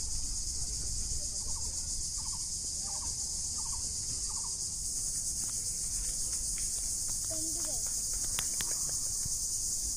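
Steady, shrill chorus of insects droning without a break, with a few faint short chirps a couple of seconds in.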